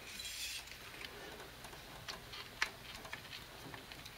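Hands handling an intercooler hose and its clamps under the hood: a short scraping rustle at the start, then scattered light clicks and taps, the sharpest about two and a half seconds in.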